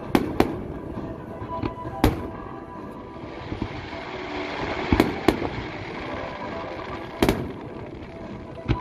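Aerial fireworks shells bursting overhead: about seven sharp booms, irregularly spaced, with two close together near the start, another about two seconds in, a pair around five seconds and more near the end.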